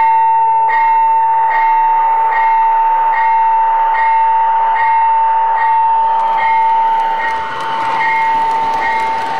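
Electronic sound system of an O-gauge model Amtrak diesel locomotive ringing its bell, one strike about every 0.8 seconds, as the model train runs.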